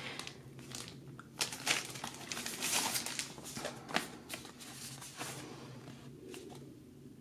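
Clear plastic blister packaging crinkling and crackling as it is handled and turned over, in an irregular run of sharp crackles that thins out after about five seconds.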